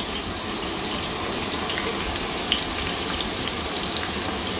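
Thinly sliced onions sizzling as they fry in plenty of hot oil: a steady hiss with a few small pops and crackles.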